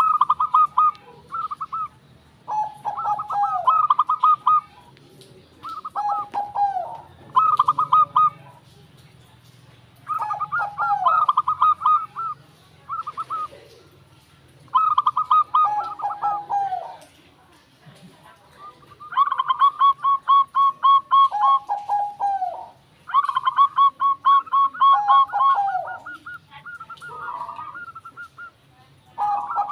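Zebra dove (perkutut) singing: repeated bouts of rapid staccato cooing notes, many ending in a lower falling note, a new bout every few seconds.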